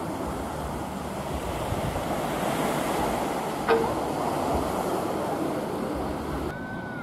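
Sea waves washing onto the beach, a steady rushing surf, with one sharp click about halfway through and a brief high tone near the end.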